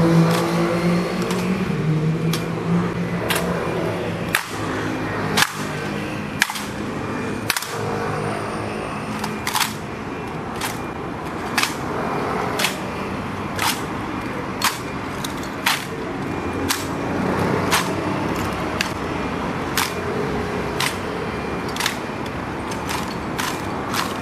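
Honor guard's hard-soled boots clacking in a slow, even march, sharp heel strikes about once a second that come faster near the end. A low traffic rumble sits under the first couple of seconds.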